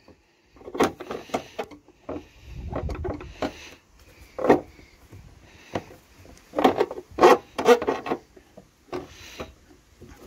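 Plastic rear light unit of a Ford Fusion being worked loose by hand: a series of short creaks, knocks and rubbing scrapes of plastic against the car body. The unit is stiff from dirt and grime in its mounting.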